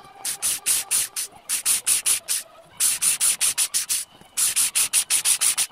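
Cordless drill with a thin bit grinding a hole through a wetted terracotta pot shard. The grinding comes in rapid pulses, about five or six a second, in three runs broken by short pauses.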